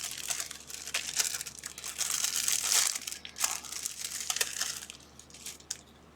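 Plastic packaging crinkling and rustling as a small bag of USB adapters is cut open and handled, in a run of short crackles that is loudest about two to three seconds in and thins out near the end.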